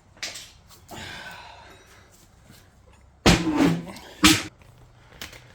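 Metal clanks and scraping from working a gearbox case cover loose on an Evo 8 six-speed transmission, with two loud knocks about three and four seconds in.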